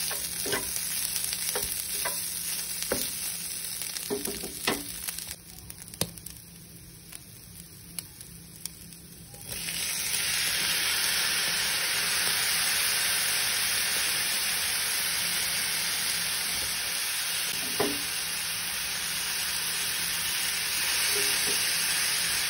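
Minced chicken and onion frying in a nonstick pan, sizzling, with spatula scrapes and taps. About ten seconds in, the sizzle jumps to a louder, steady hiss as diced tomatoes cook in the hot pan, with a single knock later on.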